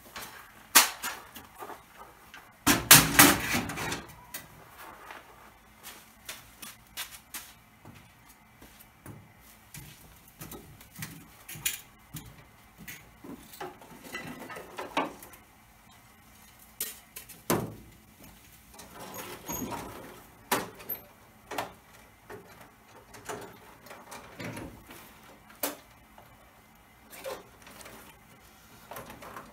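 Aluminium loading ramp clattering as it is set against a pickup's tailgate, loudest in a metallic burst about three seconds in. Scattered knocks and footsteps follow as a person climbs onto the truck bed.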